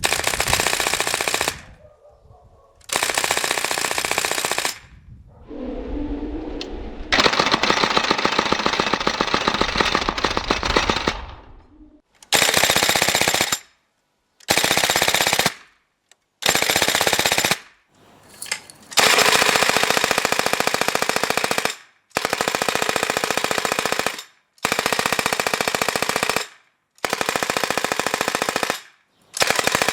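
Shoei MG42 airsoft replica dry-firing in bursts, with no BBs loaded: the bolt cycles in rapid clatters. There are about a dozen short bursts with pauses between them, and one longer burst of about four seconds.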